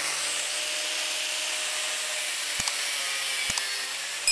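Angle grinder with a cutting disc running at full speed, a steady high whine over a harsh hiss, cutting at a handlebar-end weight that is seized and could not be knocked off. Two brief clicks come about a second apart.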